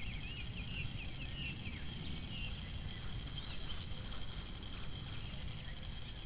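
Short, quick chirping bird calls, a run of them in the first two seconds and a few more about three and a half seconds in, over a steady low rumble and a steady high hiss.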